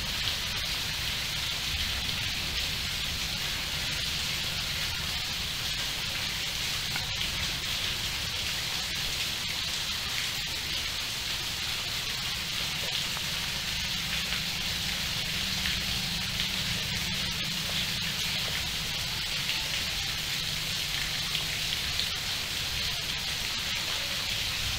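Steady rain falling on trees and foliage: an even, unbroken hiss with a low rumble underneath.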